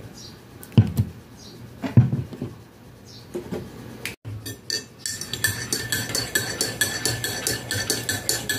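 A metal spoon stirring coffee in a ceramic mug, clinking quickly and evenly against the sides with a ringing tone, from about five seconds in. Before that come a few dull knocks.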